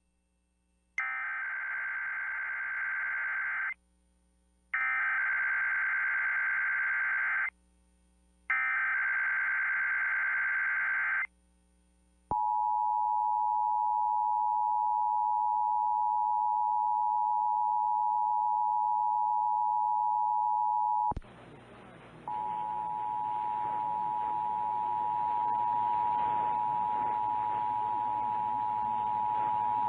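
Emergency Alert System SAME header: three bursts of digital data screech, each about three seconds long with a second's gap between them. Then comes the two-tone EAS attention signal, a steady pair of tones just under 1 kHz (853 and 960 Hz), held about nine seconds before it cuts off. A hiss comes in, and about a second later the attention tone starts again, relayed on a second station, opening a required monthly test.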